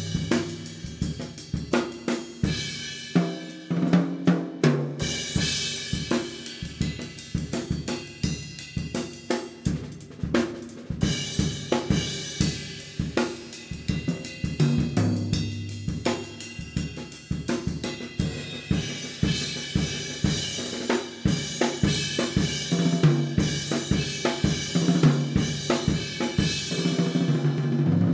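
A drum kit playing a steady groove: bass drum, snare and toms under a constant wash of hi-hat and cymbals.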